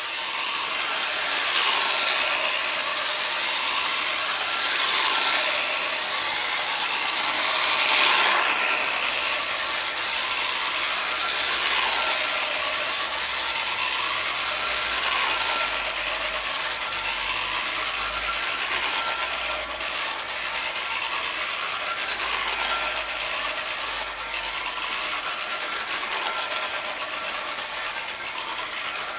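1920s JEP clockwork locomotive running round a plastic O gauge track, its wound-up clockwork motor whirring and its wheels rattling on the track. The sound is continuous, rising and falling every few seconds as it circles, and grows slightly quieter over the run.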